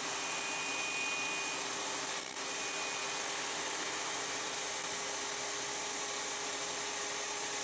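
Table saw running steadily while a plywood strip is pushed over the blade, cutting a shallow groove to hold a drawer bottom.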